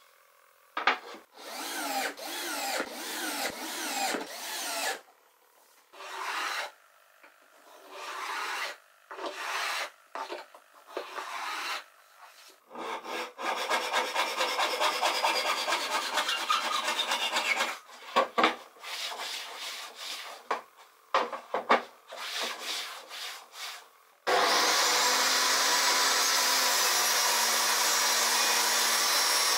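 Hand saw cutting wood in several stretches of rasping back-and-forth strokes, trimming a wooden runner strip flush with the edge of an MDF sled base. About four-fifths of the way through, a table saw motor switches on and runs steadily.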